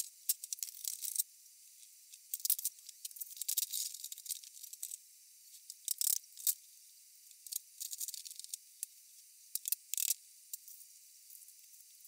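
Handling noise from fitting a wooden furniture frame together and working steel bar clamps: scattered short clicks, taps and scrapes, thin and trebly, sharpest about six seconds in and again near ten seconds.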